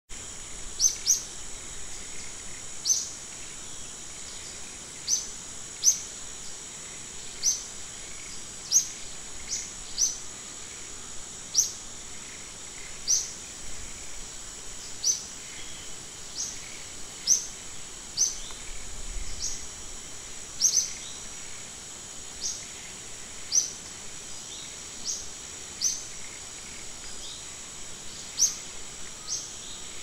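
A bird repeating a short, sharp, high chirp, about once every one to two seconds, over a steady high-pitched insect drone.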